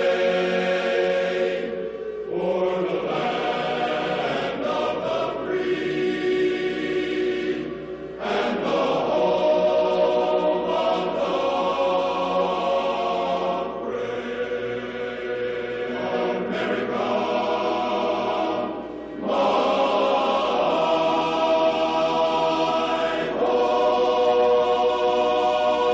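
Background music: slow, long held chords that change every few seconds.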